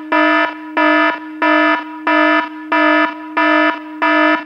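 Electronic alarm-buzzer sound effect: a buzzing tone pulsing evenly about one and a half times a second over a steady low tone, cutting off suddenly at the end.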